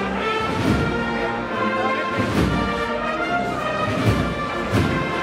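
Brass band playing a slow processional march: sustained brass chords with occasional drum beats.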